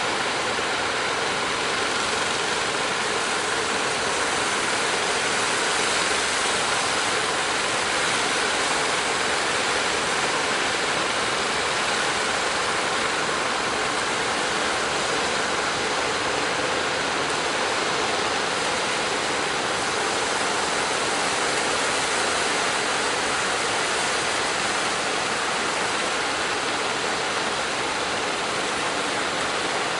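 Steady rushing noise of choppy waves breaking at a river mouth, with the engines of wooden fishing boats running under it.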